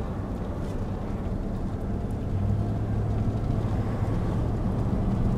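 Car engine and road noise heard from inside the cabin while driving: a steady low hum that grows louder about two seconds in.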